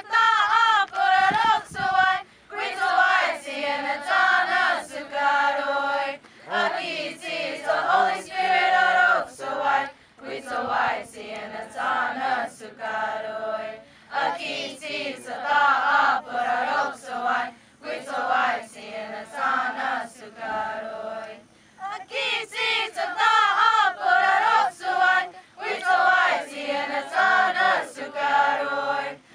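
Youth choir singing a Comanche hymn in unison, unaccompanied, with mostly girls' and women's voices. The hymn goes in phrases, with short breaths between them.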